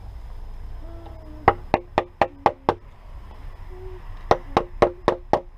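Two quick runs of about six sharp wooden knocks each, a stick striking a log as a notch is worked into it.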